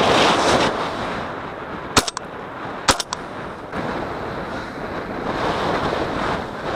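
Wind buffeting the microphone while the camera-wearer moves across an open field. Two sharp bangs, about a second apart, come roughly two and three seconds in and are the loudest sounds.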